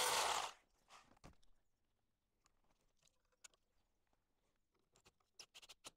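Corded power drill running into an aerated concrete block at a door-frame fixing strap, cutting off about half a second in. After that come only a few faint clicks and light taps.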